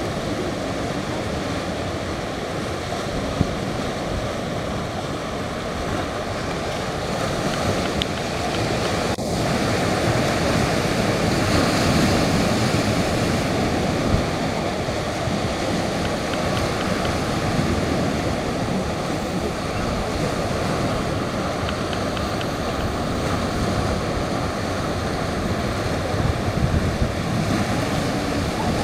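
Ocean surf breaking on a rocky shore and small beach: a continuous rushing that grows louder for a few seconds around the middle, with wind buffeting the microphone.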